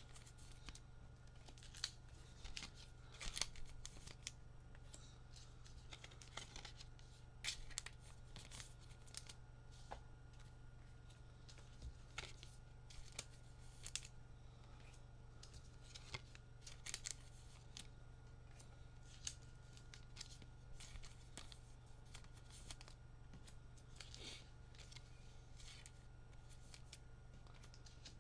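Trading cards and their packaging being handled: soft, scattered rustles, clicks and light tearing, over a faint steady low hum.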